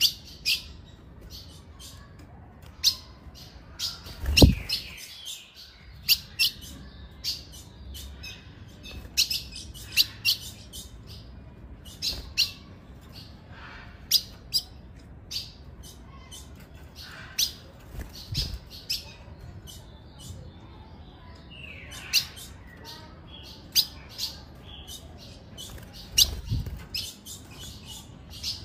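Female ultramarine grosbeak (azulão) giving short, sharp chip calls, roughly one a second at uneven intervals. A few low thumps sound under the calls, the loudest about four seconds in.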